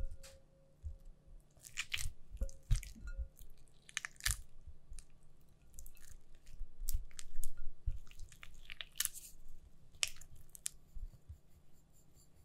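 Spatula mashing and scraping softened cream cheese in a glass bowl: irregular soft squishing strokes with the blade scraping against the glass, busiest in the middle.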